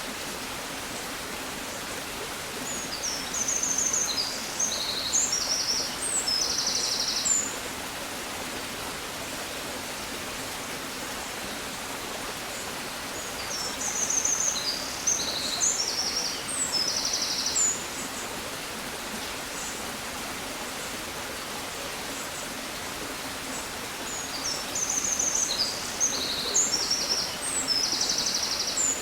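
A songbird singing the same high phrase of chirps and short trills three times, about every eleven seconds, each phrase lasting four to five seconds, over a steady rushing hiss.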